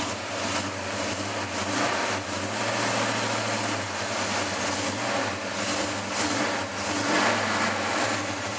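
1966 Dodge Dart GT's 360 V8, bored out to 408 cubic inches, idling steadily in gear as the car creeps slowly backward.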